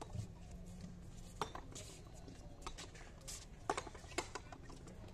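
Ball rally in a frontón game: several sharp smacks a second or so apart as the ball is struck and hits the wall and concrete floor, the loudest two close together near the end.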